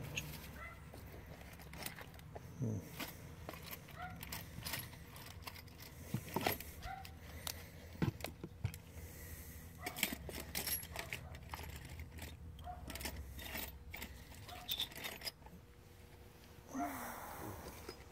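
Small metal machinist tools (dial indicators, gauges and the like) clinking and clicking as they are handled, picked up and set down on a table, in a scattered series of sharp clicks.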